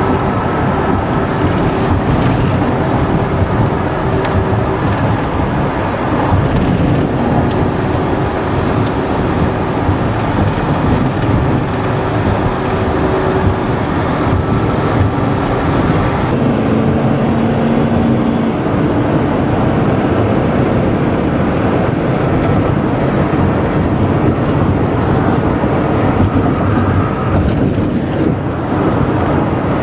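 Car and road traffic noise: a steady rumble with faint humming tones running under it.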